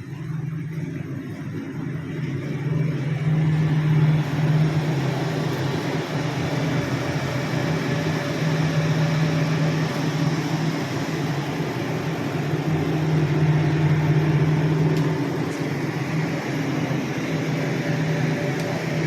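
Glorymaq GM-T650 CNC drilling and tapping machine running: a steady low machine hum under a dense noisy layer that grows louder a few seconds in, then swells and eases slightly.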